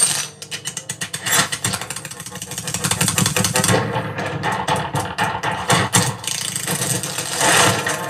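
Sonos Playbar soundbar playing a Dolby demo trailer's sound effects: a fast, dense crackle of glassy clicks over a steady low rumble, swelling into a rush near the end.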